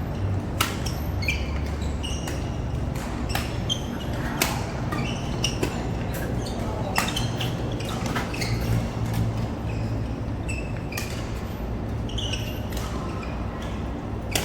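Badminton rally: rackets striking a goose-feather, cork-headed shuttlecock with sharp hits about once a second, and short squeaks of shoes on the court floor between the hits.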